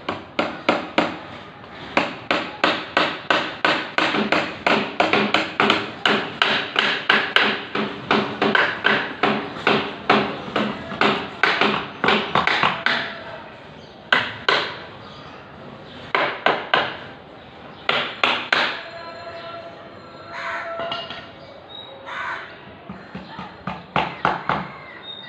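A hammer striking repeatedly, about three blows a second for some twelve seconds, then a few shorter runs of blows.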